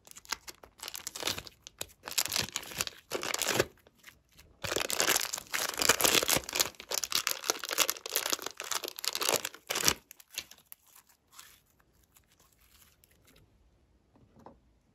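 Thin clear plastic wrapper crinkling and tearing as it is peeled off a lump of blue slime, in crackly bursts for about ten seconds, then fading to a few faint clicks.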